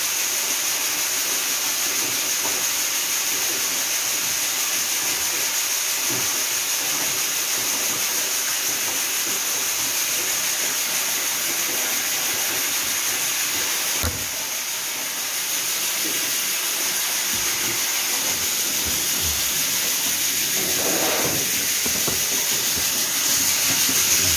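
Homemade vertical auger grain mixer running loaded with barley, driven through a belt by a 2.2 kW three-phase motor: a steady hiss of grain churning in the barrel, dipping briefly a little past halfway.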